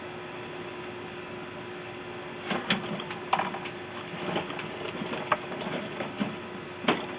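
Irregular clicks, knocks and clatter of hand tools and metal parts during the disassembly of a microwave oven, starting about two and a half seconds in, over a steady hum.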